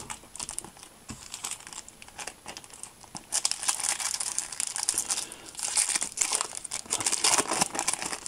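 Crinkling of a foil trading-card booster pack wrapper as it is handled and opened. Sparse crackles at first, then dense, louder crinkling from about three seconds in.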